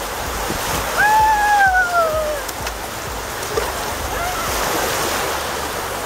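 Small Mediterranean surf waves washing over the sand at the water's edge, a steady rushing. About a second in, a single drawn-out cry, falling in pitch, rises briefly above the surf.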